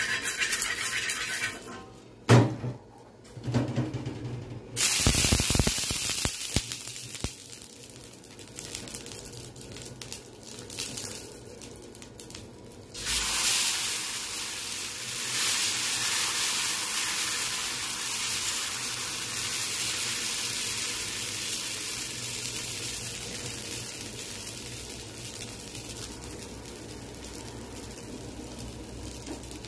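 Dosa batter sizzling on a hot iron tawa: a steady hiss that comes in suddenly about halfway through as the batter is ladled on and spread, then slowly fades as the dosa cooks. Before it, water hisses on the hot pan while it is wiped, with a sharp knock about two seconds in.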